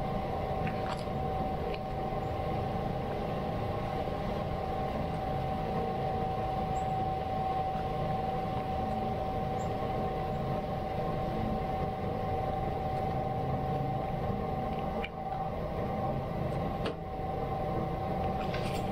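Steady mechanical hum with one constant mid-pitched tone over a low rumble.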